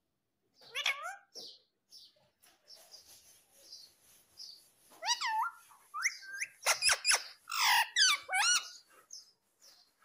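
Rose-ringed (ringneck) parakeet calling: a short call with bending pitch about a second in, then a run of loud squawks with swooping pitch from about halfway through until near the end.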